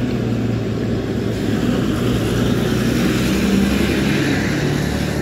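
Diesel bus driving past close by at speed, its engine hum and tyre noise growing louder to a peak about three and a half seconds in.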